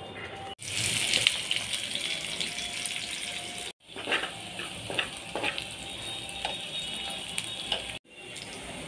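Food frying in hot oil: a loud, steady sizzle, then after a cut a quieter sizzle with scattered pops and crackles.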